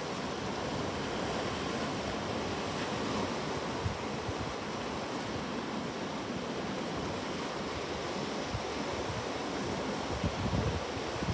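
Sea waves breaking and washing on a shore, a steady rushing surf with a few low gusts of wind on the microphone near the end.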